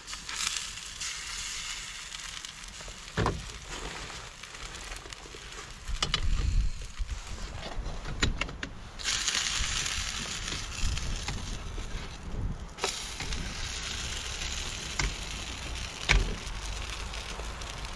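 Spirit stove burning under a pan of frying crêpe batter, with a steady hiss that strengthens for a few seconds in the middle. Wind gusts on the microphone twice, and there are a few light knocks.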